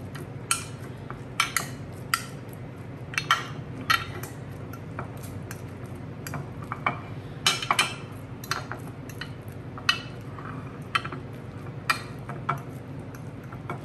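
Hands pressing and patting shredded hash browns into a glass baking dish: irregular sharp taps and clinks, about one or two a second, over a low steady hum.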